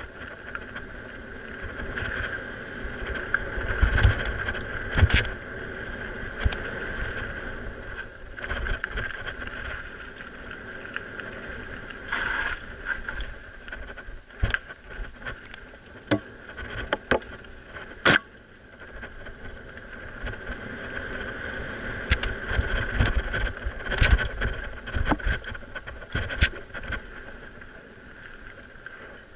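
Mountain bike riding down a rough dirt and rock singletrack: a steady whir of tyres and ride noise, broken by sharp rattles and knocks as the bike bounces over rocks and roots, thickest about four to five seconds in, once near the middle and again towards the end.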